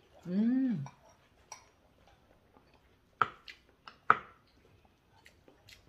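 A short hummed "mmm" near the start, then tableware clinking: two sharp clinks of utensils against ceramic bowls about three and four seconds in, with lighter ticks between.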